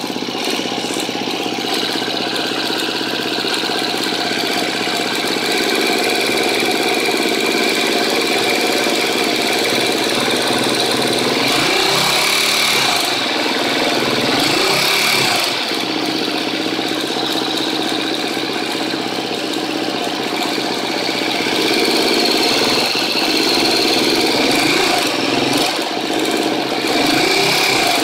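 A 2013 KTM 250 EXC-F's single-cylinder four-stroke engine idling with a ticking noise, revved up briefly a few times in the second half. The owner asks whether the tick comes from a bad cam tensioner.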